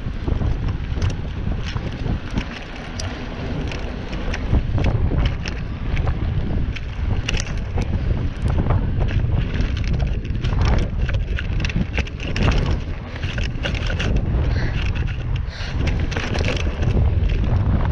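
Wind buffeting the microphone during a mountain bike ride, over a steady low rumble, with frequent sharp clicks and rattles as the bike rolls over a dirt trail.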